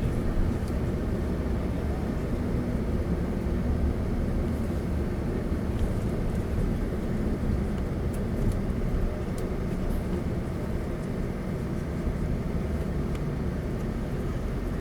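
Steady low rumble of engine and road noise inside a moving tour coach.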